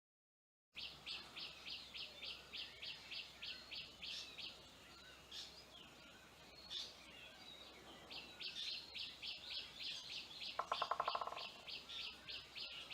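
Birds calling: one bird repeats a high chirp about five times a second in two long runs, with scattered calls from other birds between them. A short, lower, rattling trill comes in about ten and a half seconds in.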